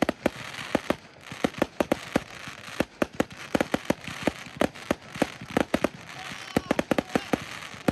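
Aerial fireworks bursting in rapid, irregular succession: many sharp bangs, several a second, with crackling between them.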